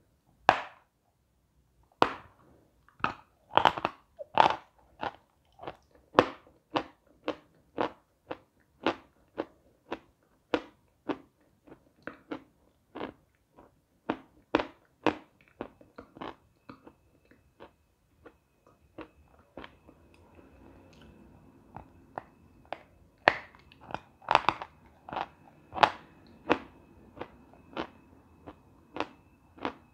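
Close-up crunching of a chunk of edible chalk being bitten and chewed, about two crunches a second, with a few louder bites. A faint steady high tone sounds through the second half.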